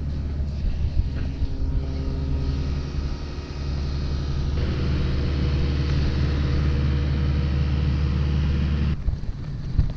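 Steady low rumble with a hum. Hiss joins it abruptly about four and a half seconds in, and the sound changes abruptly again about a second before the end.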